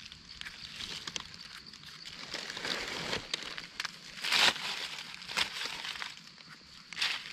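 Rustling and crunching in forest leaf litter, in irregular bursts, the loudest a little after the middle.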